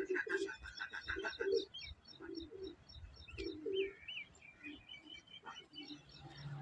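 Doves cooing in a repeated low call while small birds chirp over them in quick high notes, with a wavering whistled call a little past halfway.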